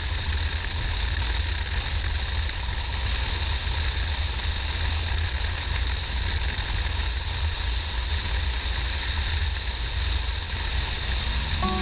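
Steady wind rush over the microphone and a low rumble from a motorcycle riding at speed. Music comes in just at the end.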